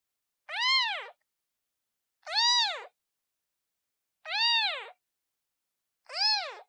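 Kitten meowing four times, about every two seconds, each high call rising and then falling in pitch, with silence between: a kitten calling for its mother.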